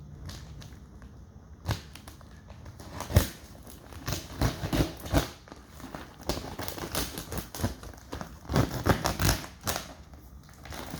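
Cardboard shipping box and its wrapping being opened by hand: irregular crinkling, tearing and crackling, with scattered sharp knocks and clicks, busiest in the middle and near the end.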